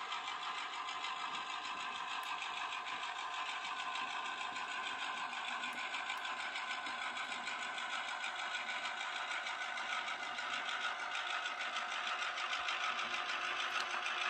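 Murphy Models class 121 model diesel locomotive running slowly: its sound decoder's diesel engine sound plays through the small onboard speaker as a steady whirring drone, growing a little louder near the end.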